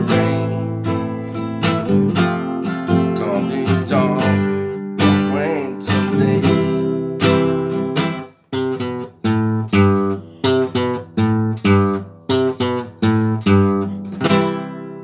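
Acoustic guitar strumming chords in a steady rhythm as the song's instrumental ending. About halfway through it breaks off briefly, then plays short, separate strums that fade toward the end.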